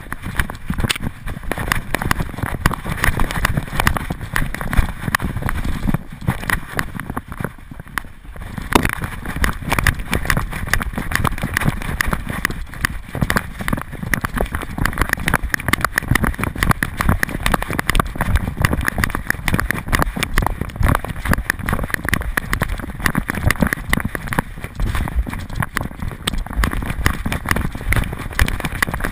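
A running dog's rapid footfalls jolting a dog-mounted GoPro camera: a fast, uneven train of thuds and knocks with grass brushing past, easing off for a couple of seconds about seven seconds in before picking up again.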